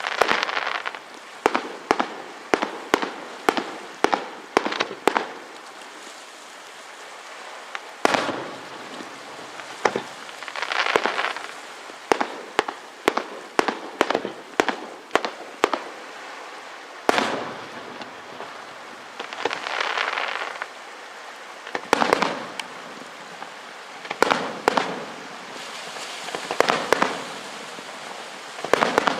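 Aerial fireworks show: runs of sharp shell bursts, several a second, between stretches of crackling hiss from crackling-star effects.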